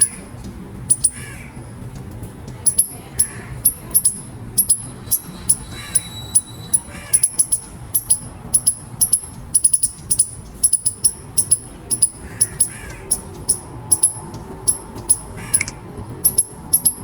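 Eastern gray squirrel squeaking: short, sharp, high-pitched squeaks repeated irregularly, often in quick clusters of two or three, with fainter lower calls between them.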